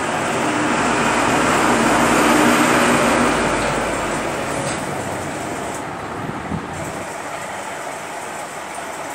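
A rushing rumble that swells to a peak about two and a half seconds in and then slowly fades, like a road vehicle passing by.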